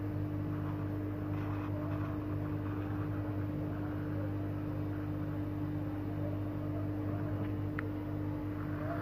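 Hot air rework station blower running steadily with a constant low hum while it heats a phone board's CPU to reflow its solder.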